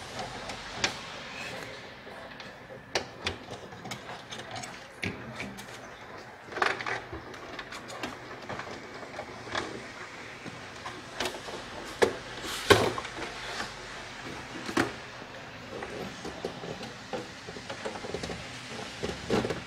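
Scattered clicks and knocks of hands handling power cables and connectors inside an open desktop PC case, the loudest cluster about twelve seconds in, over a faint steady hum.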